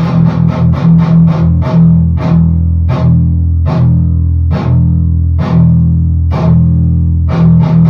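Electric guitar through a cranked, cathode-biased tube amp (12AX7 and 12AU7 preamp tubes), playing crunchy distorted palm-muted chugs on the low E string: a run of quick chugs, then heavier strikes about a second apart with the low note ringing between. The tone is clear, free of the noise that the faulty preamp tube sockets caused.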